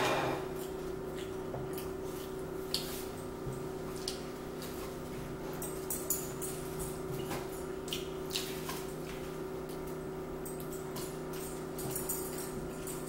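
Scattered light clicks and taps of utensils, plates and plastic cups at a meal, over a steady hum.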